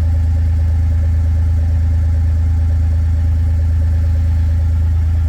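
Kawasaki Mule utility vehicle's engine idling steadily, a constant low running note with no change in speed.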